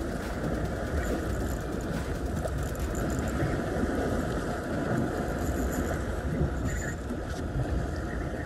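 Wind blowing across the microphone: a steady, rumbling hiss.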